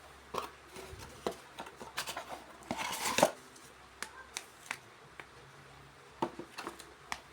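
Hands handling small objects: scattered clicks and knocks, with a louder rustling scrape about three seconds in.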